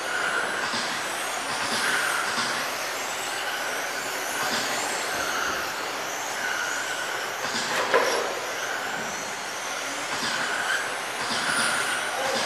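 Electric on-road RC touring cars with 21.5-turn brushless motors racing on a carpet track: the whine of their motors and gearing rises and falls as they pass. There is a sharp knock about eight seconds in.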